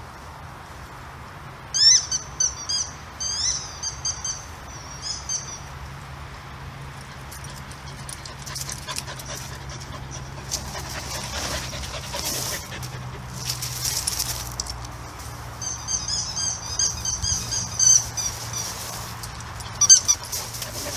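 Bouts of short, high-pitched squeaks coming in quick runs, one about two seconds in and another about sixteen seconds in, over a faint steady low hum.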